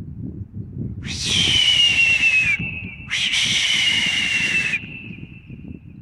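Two long, hoarse whistles, each about a second and a half, with the pitch sliding slightly downward; after the second, a faint tone fades out over about a second.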